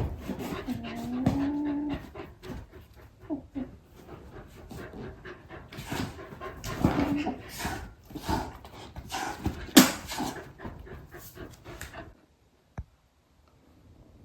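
A dog, the Golden Retriever, panting in quick breaths, with a short whine in the first couple of seconds. The sound cuts off suddenly about twelve seconds in.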